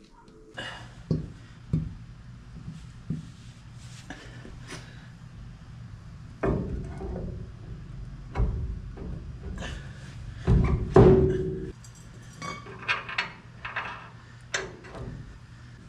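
Background music, with irregular metallic clanks and knocks as a disc brake rotor and hub is handled and slid onto the truck's front spindle; the loudest handling comes about ten to eleven seconds in.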